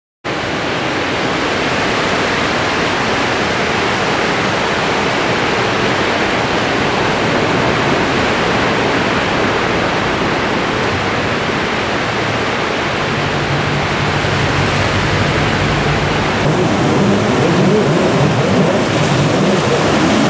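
Ocean surf breaking and washing up a beach, a steady roar of waves. In the last few seconds a jet ski engine comes in over the surf, its pitch wavering up and down.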